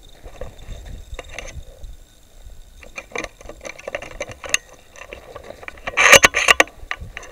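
Handling noise from a hand-held camera being carried, with scattered clicks, scrapes and rubbing that sound like footsteps. About six seconds in comes a louder burst of rustling and rubbing that lasts under a second.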